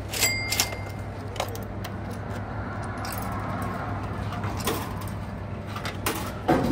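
Coins going into the coin slot of a retro cup-noodle vending machine: a sharp metallic clink with a brief ring a moment in, then several lighter clicks of coins and the coin mechanism, the last two near the end.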